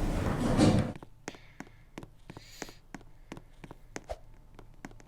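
A pitched, music-like sound cuts off about a second in. It is followed by a run of short clicks, about three a second, from lift buttons being pressed over and over.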